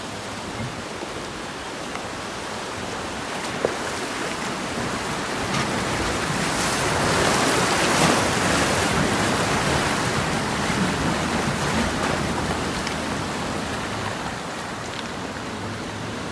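Steady rushing water noise that swells to its loudest about halfway through, then eases off.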